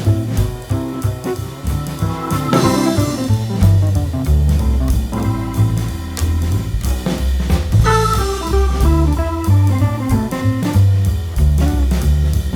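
Background music: a band with guitar, bass and drum kit playing a steady upbeat groove.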